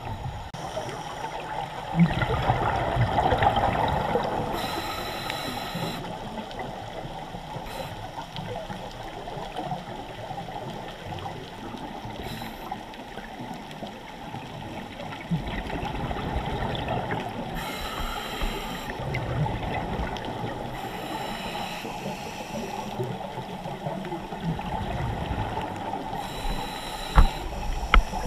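Scuba diver breathing through a regulator underwater: a few slow breaths, each a short hiss on the inhale and a gurgling surge of exhaust bubbles on the exhale, over a steady underwater hiss.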